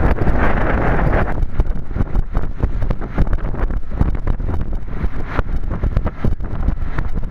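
Wind buffeting the microphone on the open deck of a sailing yacht under way: a steady low rumble with rapid fluttering. A brighter rushing hiss runs over it for about the first second, then drops away.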